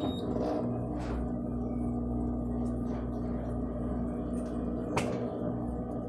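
Electrolux Turbo 15 kg top-loading washing machine on its fast spin: the motor and spinning basket run with a steady hum that starts abruptly. There is a faint tap about a second in and another about five seconds in.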